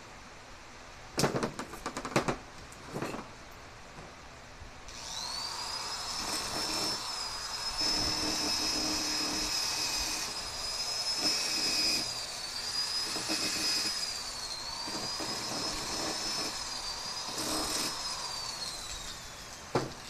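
A few sharp hammer knocks on steel, then an electric angle grinder runs for about thirteen seconds grinding the weld on a garage door spring hook. Its high whine dips briefly several times as it bears on the metal and winds down near the end. A single click comes just before the end.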